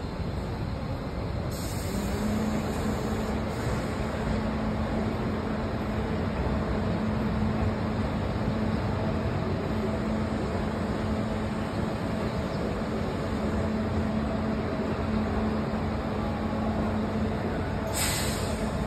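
Steady vehicle noise from city buses and traffic at a streetcar and bus stop, with a low steady hum through most of it. Near the end a short hiss of released air cuts in as a streetcar comes into the stop.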